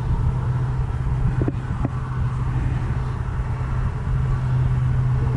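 Steady low hum of a running motor over a continuous background rush.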